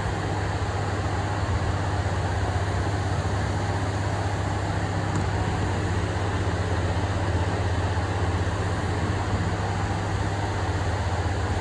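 Paint spray booth extraction fans running: a steady low hum under an even rush of air.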